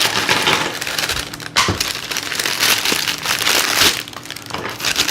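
Packaging crinkling and rustling as toy parts are handled and pulled out of their wrappings, easing off near the end.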